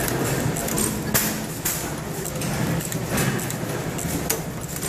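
Vertical stationary gas engine running, with a steady low chug and a few sharp metallic clacks from its valve gear and igniter linkage at uneven intervals.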